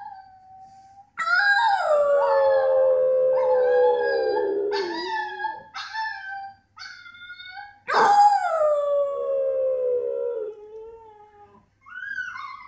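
French bulldog howling: two long howls that slide down in pitch, with a run of short, higher howls between them and a brief rising yelp near the end.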